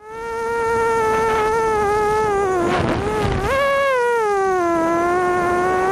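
FPV racing quadcopter's brushless motors and 5-inch props whining as it flies, fading in at the start. The pitch wavers with throttle, dips with a brief rush of air noise near the middle, jumps up sharply about three and a half seconds in, then slowly falls.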